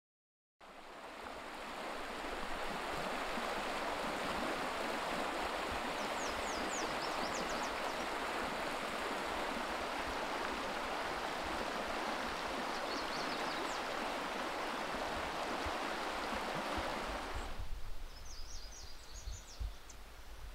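Donner und Blitzen River rushing over riffles: a steady rush of water that fades in at the start, with a few short bursts of small birds chirping. About three-quarters of the way through, the water sound drops away suddenly and the birds chirp over a much quieter background.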